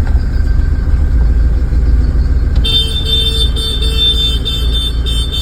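Low steady rumble of a motor vehicle. About halfway through, a high electronic horn tone starts and sounds in short pulses with brief gaps.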